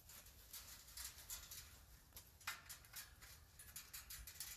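Faint clicks and rustles as a metal tube farm gate is handled and swung open, with a short scrape about halfway through.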